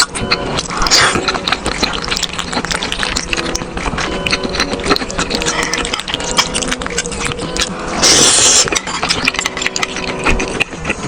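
Close-miked eating of meat: a dense run of wet chewing clicks and mouth noises, with a louder, noisier bite or stretch of chewing about eight seconds in.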